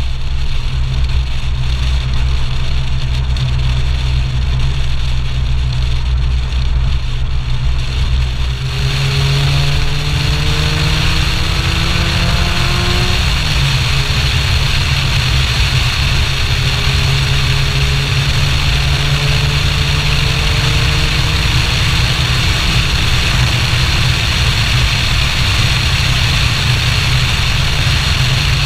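Supercharged Lotus Elise 111R's 1.8-litre four-cylinder engine, heard through heavy wind noise on an externally mounted camera as the car drives at speed. About nine seconds in the sound brightens and the engine pitch climbs under acceleration, drops at a gear change a few seconds later, then climbs gently again.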